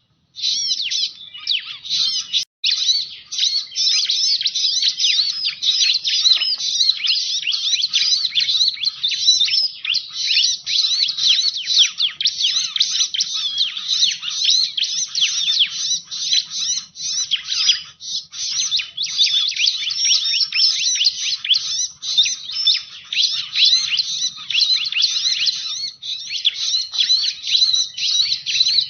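Bar-winged prinia (ciblek) calling in a dense, rapid, unbroken stream of high chirps, a lure call played to attract wild ciblek.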